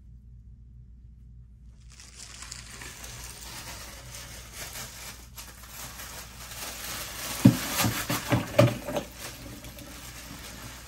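Plastic bag crinkling as it is handled and shaken out over a cooler of water, with a quick run of loud knocks a little past the middle, most likely ice being emptied in to chill the condenser's water supply.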